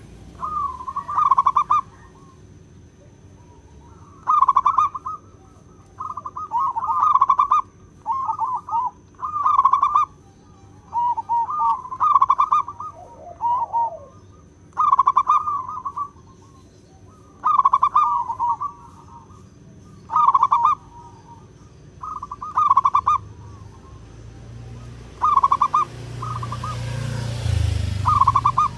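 Zebra dove (perkutut) singing: short, rapid trilled cooing phrases repeated every second or two. Near the end a rushing noise with a low rumble builds up under the song.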